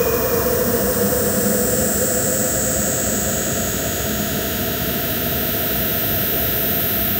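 Industrial noise music: a dense, steady wall of hiss and rumble, with a droning tone that sinks slightly and fades out over the first few seconds.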